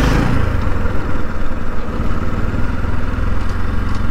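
Motorcycle engine running at low revs as the bike rolls slowly along, the throttle eased off a moment in.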